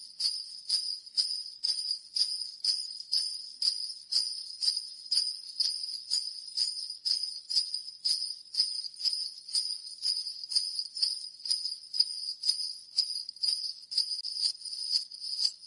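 Sleigh bells jingling in a steady looped rhythm, about two shakes a second (122 beats per minute).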